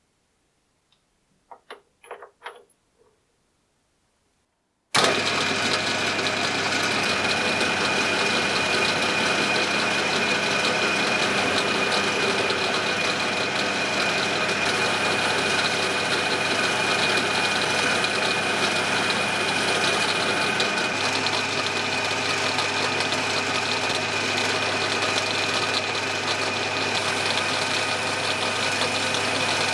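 A few light taps of hand-held parts, then about five seconds in a metal lathe's steady running sound cuts in, with a constant whine, as it faces and then drills a round metal bar for the chisel's new tip.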